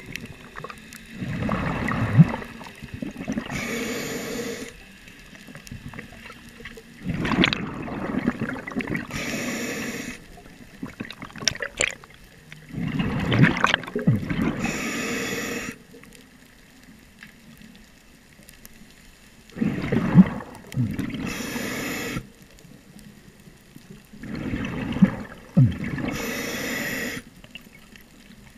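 Scuba diver breathing through a regulator underwater: five breath cycles about six seconds apart, each a gurgling burst of exhaust bubbles and a hissing inhale.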